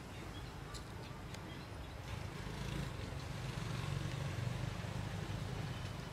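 Low rumble of a motor vehicle's engine in the distance, growing louder through the middle, with a few faint small clicks and chirps over it.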